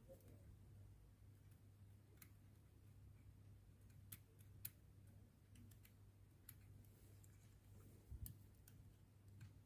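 Near silence with a low steady hum and a few faint, scattered clicks of a precision screwdriver and tweezers against a watch as its tiny screws are undone.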